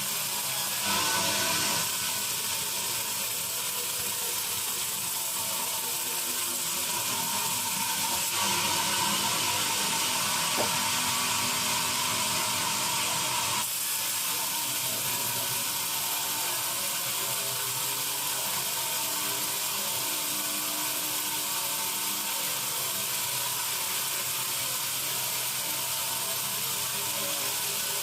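Sawmill bandsaw running through a teak log: a steady high-pitched mechanical noise that shifts slightly about eight seconds in and again about fourteen seconds in.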